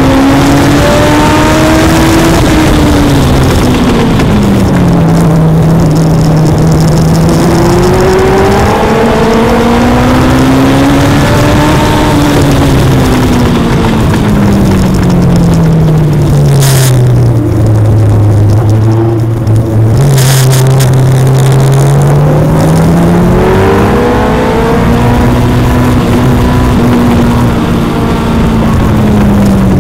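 Legend race car's Yamaha four-cylinder motorcycle engine running hard, its pitch climbing and falling in long sweeps as it laps. It drops to its lowest about two-thirds of the way through, with two sharp cracks there, then climbs again.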